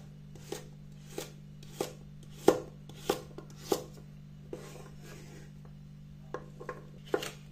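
Chef's knife dicing a carrot on a wooden cutting board: sharp chops striking the board about once every two-thirds of a second, then a few lighter, scattered knocks in the second half, over a steady low hum.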